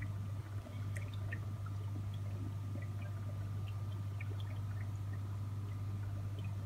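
Water bubbling and trickling in an air-driven K1 micro moving bed aquarium filter, with scattered small drips and pops over a steady low hum.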